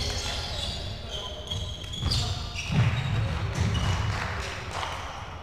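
Volleyball thumps, ball hits and bounces on the hard court floor, echoing in a large sports hall; the loudest thump comes about three seconds in. Short high squeaks, likely sports shoes on the floor, sound in between.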